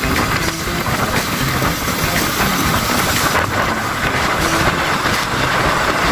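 Sport motorcycle riding along a road, its engine running steadily under a dense rush of wind and road noise.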